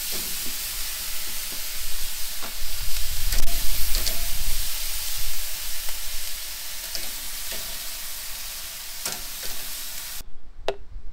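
Sauced chicken wings sizzling on the grate of a hot charcoal grill as they are tipped out of a metal bowl and moved around with tongs, with scattered clicks of the tongs against the grate. The sizzle cuts off suddenly near the end.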